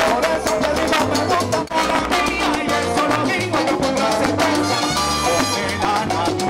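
Live salsa band playing, with congas and other percussion over a repeating bass line.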